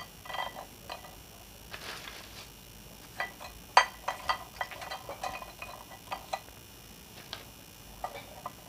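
Crisp fried papri crackers being laid one by one onto a plate: an irregular run of light clicks and taps as the brittle pieces knock against the plate and each other, with a brief rustle about two seconds in.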